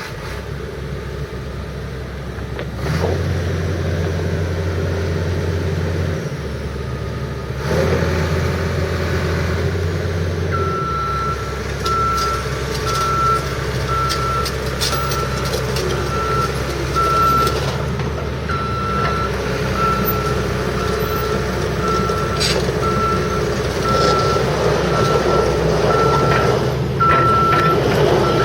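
Hitachi EX300LC-3 excavator's diesel engine running just after start-up, its low note shifting in steps during the first ten seconds. From about eleven seconds in, a travel alarm beeps about once a second as the machine moves on its tracks.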